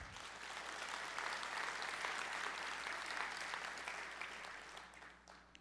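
Audience applauding, a steady clapping that fades away near the end.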